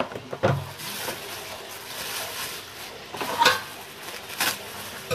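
Light kitchen clatter: a few short knocks of kitchenware over a faint steady hiss.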